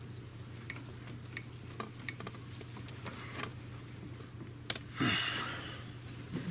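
Small clicks and handling noises of gloved hands fitting the choke cable onto an ATV carburetor, with a sharp click and then a short rustle about five seconds in, over a steady low hum.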